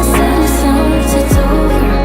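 Electronic pop-house music playing, with synth chords over a steady bass line and a drum hit about a second in.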